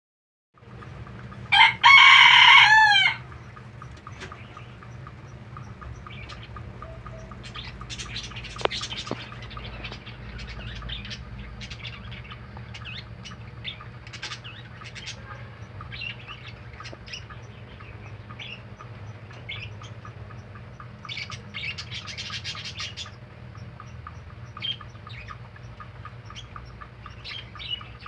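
Baby rabbits chewing fresh vegetables: a long run of small, irregular crunching clicks over a low steady hum. Near the start there is a loud, briefly held call whose pitch rises and falls in quick repeated waves.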